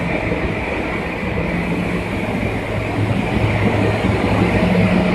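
Motors and machinery of a food extrusion processing line running: a steady mechanical drone with a low hum, growing a little louder about three seconds in.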